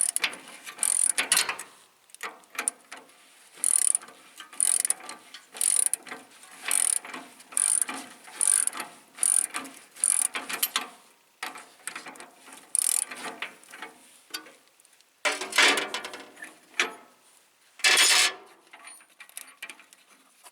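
Hand ratchet wrench clicking in repeated strokes, a short burst of clicks about once a second, with a few longer, louder runs of clicking near the end.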